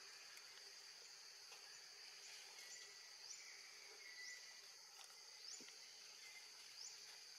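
Faint, steady high-pitched insect drone, with a short rising chirp repeating about once a second through the second half.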